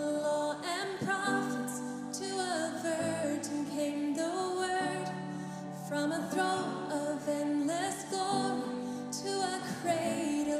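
A woman sings a slow, gentle worship song into a microphone, holding long notes over soft, sustained band accompaniment.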